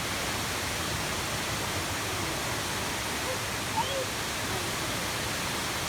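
Waterfall running high: a steady, even rush of falling water.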